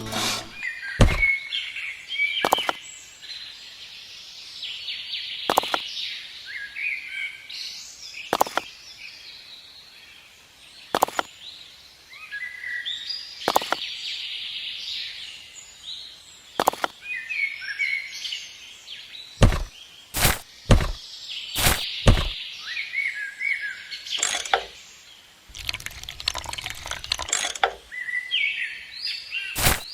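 Small birds chirping over and over, with sharp clicks or knocks every few seconds and a quick run of them about twenty seconds in.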